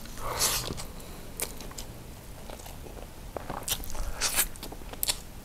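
Close-miked mouth sounds of a person eating rice by hand: chewing and wet smacking, with a few sharper noisy bursts about half a second in and again around four seconds in, as he sucks sauce off his fingers.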